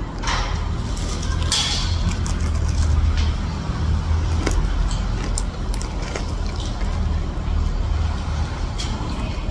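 Steady low mechanical rumble with a few brief rustles and clicks.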